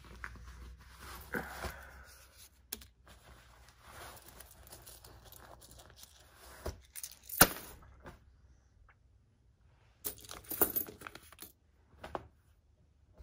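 Paper money rustling and coins clinking as they are set down on a wooden workbench, with scattered clicks, one sharp one about halfway, and a quick run of coin clinks near the end.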